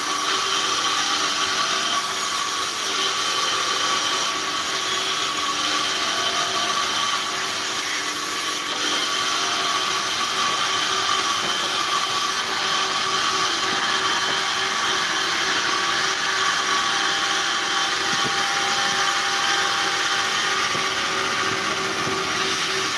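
Sawmill band saw running steadily, with a constant hum and whine, while timber is sawn into planks.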